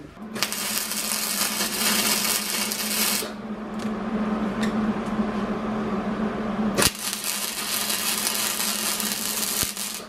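A power tool runs with a steady hum for about the first seven seconds as the steel is cleaned up. It then cuts to the crackle of a MIG welder welding a bolt onto the steel bracket.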